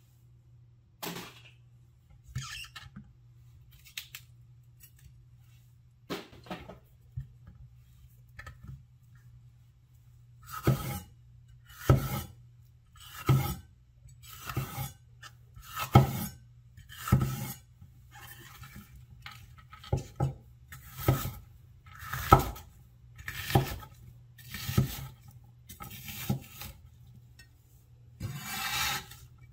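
Chinese vegetable cleaver cutting green bell pepper on a wooden cutting board: a few scattered cuts at first, then steady chops about once a second, each a crisp crunch ending in a knock of the blade on the board. Near the end the blade scrapes across the board as the diced pieces are gathered. A faint low hum runs underneath.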